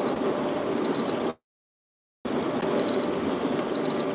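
Steady road and engine noise inside a moving truck's cab, with a short high double beep repeating about once a second. The sound cuts out completely for about a second in the middle.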